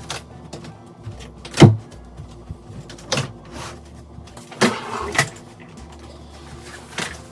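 A handful of sharp knocks or thumps, the loudest about one and a half seconds in, over a faint steady hum.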